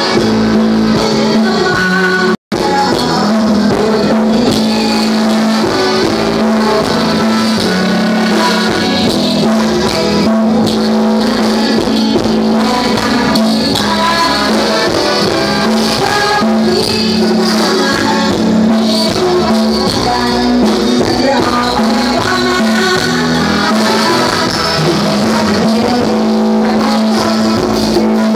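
Loud live band music through a concert PA system, continuous and dense, with a held low note sounding under most of it. The sound cuts out for an instant about two and a half seconds in.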